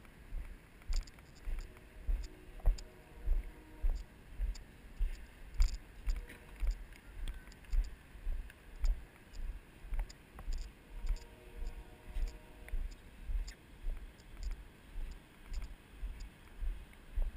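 Footfalls jolting a body-worn GoPro: a steady run of low thumps about twice a second, each with a small click from the camera or its mount.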